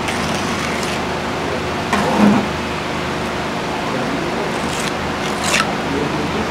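Small trowel scraping and spreading wet cement over wire mesh: a knock about two seconds in and a couple of short scrapes near the end, over a steady background hiss.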